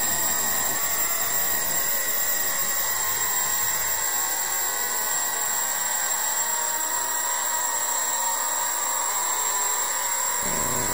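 Steady, loud rushing noise like static, with faint high steady tones over it. The deep part of the noise thins out in the first few seconds and comes back suddenly near the end.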